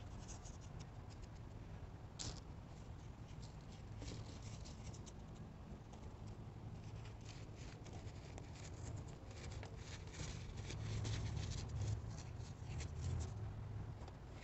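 Coloured baking soda, not fully dry, being crumbled and squeezed between fingers: soft, dry crunching and crackling, denser through the middle and later part, with one sharper crack a couple of seconds in.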